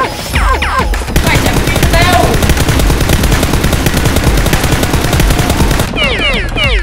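Fast automatic machine-gun fire, a sound effect standing in for a Nerf blaster firing, running as a dense string of rapid shots. Falling whistle-like sweeps come at the start and again near the end.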